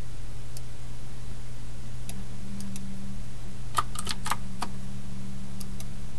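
Scattered clicks of a computer keyboard, with a quick run of several keystrokes about four seconds in, over a steady low hum.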